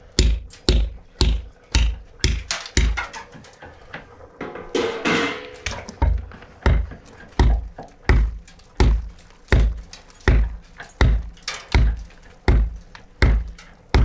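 Hand tools cutting into a mud-plastered wall: a hammer striking a chisel, then a tool hacking at the wall itself, giving sharp knocks with a deep thud about one and a half times a second. The blows pause for a few seconds around the middle.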